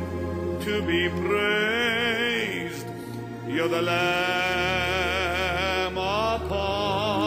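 Slow worship music: a sustained low pad under long held melodic notes that waver with vibrato, with one brief pause about three seconds in.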